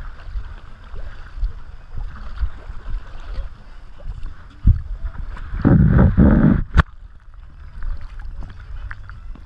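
Water sloshing and splashing around a swimming dog, picked up by a camera strapped to its back, over a low rumbling noise on the microphone. About six seconds in comes a louder rush of splashing lasting about a second, followed by a sharp click.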